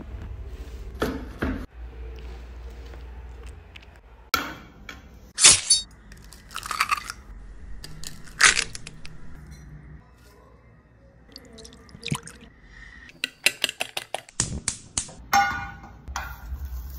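A string of short close-up kitchen sounds: crunches, taps and clinks on a wooden board and glass, including an egg cracked into a glass dish about halfway through.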